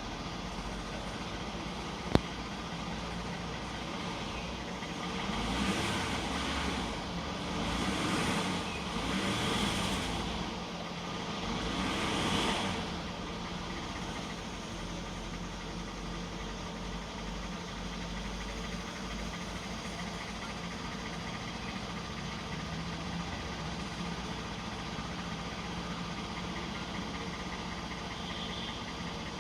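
V6 engine idling with a knock, revved up and back down briefly four times between about 5 and 13 seconds in, then settling back to a steady idle. A single sharp click comes about 2 seconds in.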